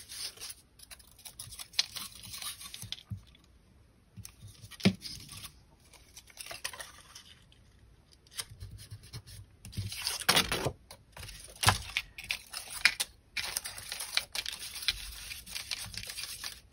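Paper rustling and crinkling as accordion-folded paper strips are handled and pressed onto a paper heart, with scattered sharp taps and knocks of hands on the tabletop.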